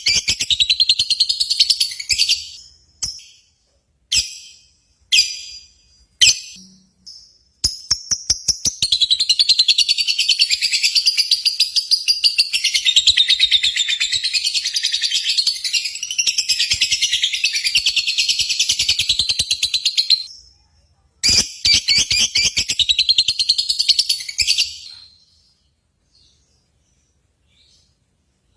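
Lovebirds chattering in long, rapid trills of shrill, high notes. There are several short bursts in the first seven seconds, then an unbroken run of about twelve seconds, and another of about four seconds after a brief pause.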